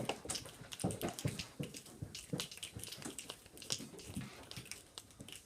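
A group of children making rainforest sounds with their hands and voices: a patter of scattered clicks and taps that thins out and grows quieter toward the end.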